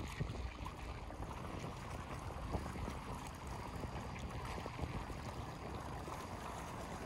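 Small lake waves lapping against the stones of the shoreline, a steady wash of water with light wind.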